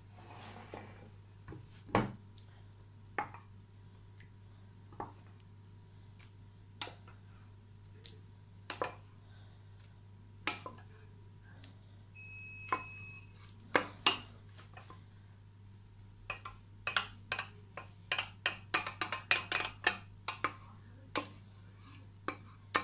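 A spoon knocking and clinking against dishes as cooked pumpkin is spooned out and spread over biscuits in a glass baking dish. Single knocks every second or two at first, then a quick run of clinks over the last several seconds.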